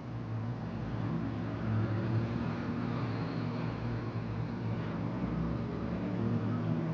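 A steady low mechanical hum, as from a running motor, over a faint even hiss.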